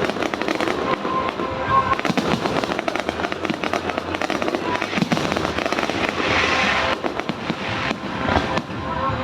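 Fireworks display: rapid, dense crackling and popping of bursting shells, with a thick hissing shower of crackle about six seconds in. Music plays underneath.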